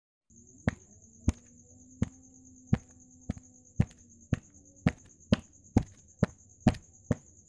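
A run of sharp, evenly spaced clicks, about two a second and gradually quickening, over a faint steady high-pitched whine. It starts abruptly out of dead silence, like a sound effect laid into the soundtrack.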